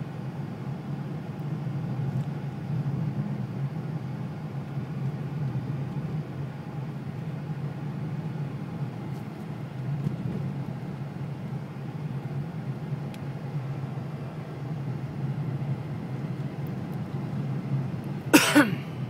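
Car driving on a snow-packed road, heard from inside the cabin: a steady low engine hum with tyre and road noise. A brief loud burst comes near the end.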